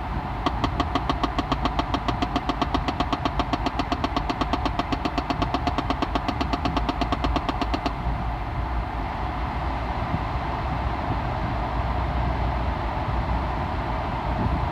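Fast, even knocking from behind the glove compartment of a 2011 Chevy Impala LT, several knocks a second, in the part of the dash that is tied to the air-circulation setting. The knocking stops about eight seconds in, leaving the car's steady running noise.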